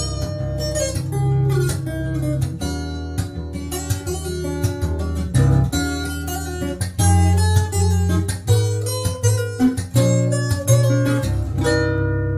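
Yamaha FS800 steel-string acoustic guitar played fingerstyle: a plucked melody over repeated low bass notes, with the higher notes thinning out near the end.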